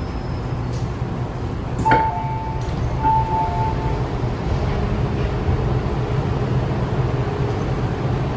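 MTR M-train passenger doors opening at a station: a sharp clunk about two seconds in as the doors release, then the door chime, two short high-low beep pairs, while the doors slide open. Under it runs the stopped train's steady low hum.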